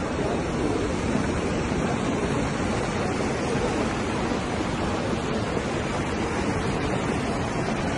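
Torrential rain and muddy floodwater rushing down a street: a dense, steady noise.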